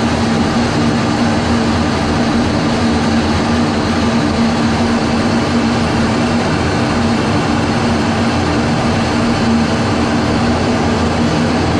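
Steady jet engine and airflow noise inside the cockpit of a Su-30MKI fighter in flight, a loud constant rush with a steady low hum running under it.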